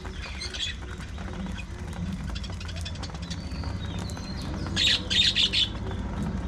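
Budgerigars chirping, with a loud burst of three harsh squawks about five seconds in, over a steady low background hum.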